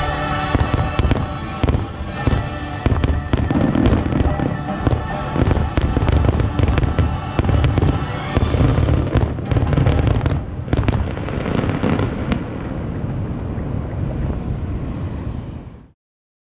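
A fireworks closing barrage: a rapid string of sharp bangs and deep booms under the last held chord of the show's music. After about twelve seconds the bangs thin out into a steady rushing noise, which cuts off abruptly near the end.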